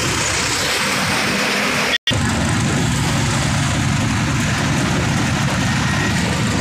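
Steady engine and road noise from inside a moving truck's cab, with a low rumble under a rushing hiss. The sound cuts out for an instant about two seconds in.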